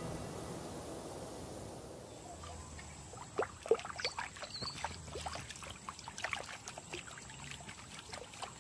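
Background music fades out over the first two seconds. Then comes a scatter of faint, irregular ticks and scratches over a thin, steady high whine.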